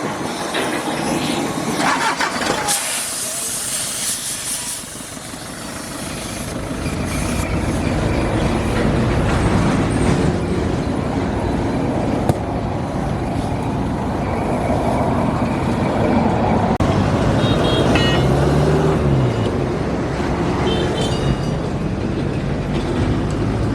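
A large vehicle engine comes up to speed about five seconds in and then runs steadily with a low rumble. Near the end its pitch rises and falls briefly.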